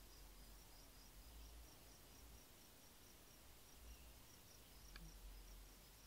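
Near silence with faint insect chirping: short high chirps repeated evenly, about three a second, over a low background rumble, with one faint tick about five seconds in.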